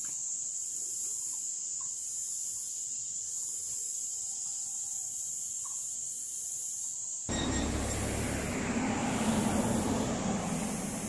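Insects buzzing in a steady high-pitched chorus. About seven seconds in, a louder rumbling rush cuts in abruptly and swells, drowning out the buzzing.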